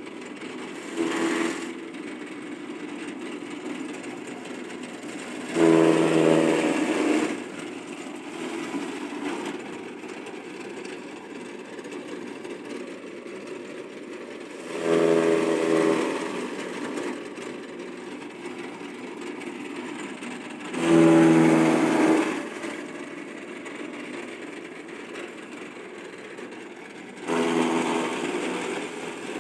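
Electric chaff cutter (motor- and belt-driven grass and straw cutting machine) running steadily. Four times it rises into a louder buzzing chop lasting a second or two as bundles of green fodder are fed in and cut.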